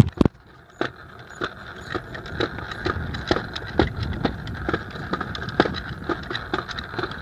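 Wheels rolling over a concrete sidewalk while it is being ridden: a steady whir with many quick clicks and rattles.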